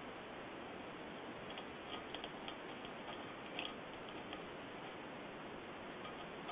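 A run of faint, irregular clicks and taps over a steady background hiss, clustered from about one and a half to four seconds in.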